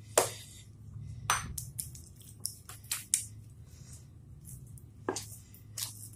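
Oiled msemen dough being kneaded and pressed by hand on a ceramic plate: a string of short wet squelches and slaps at irregular intervals, over a steady low hum.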